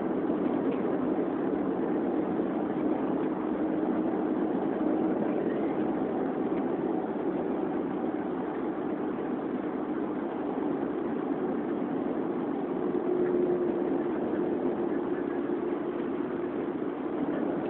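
Steady engine drone and road noise heard from inside the cabin of a moving car. The engine hum steps slightly higher and louder about thirteen seconds in.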